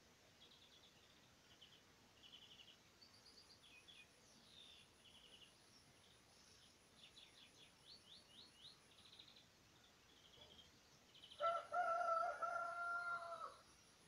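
Small songbirds singing faintly, in short trills and quick runs of high notes. Near the end a rooster crows once, loud and about two seconds long.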